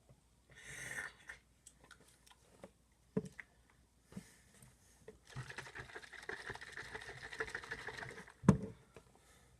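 Handling noises from a mixed drink in its cup: a brief rustle, scattered clicks, about three seconds of steady crackly rattling, then one heavy thump near the end.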